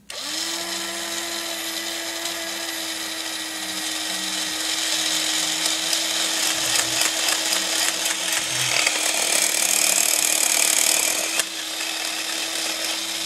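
Toy robot's small electric motor and gear train running on a test, a steady whir with gear chatter over it; the toy's gears are freshly rebuilt and replaced. It gets louder through the middle and drops back about eleven seconds in.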